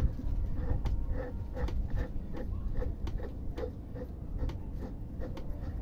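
Air filter being screwed by hand onto the intake of a Truper COMP-KIT25 air compressor: an even run of light clicks, about two or three a second, as it is turned on its threads, over a low rumble of handling noise.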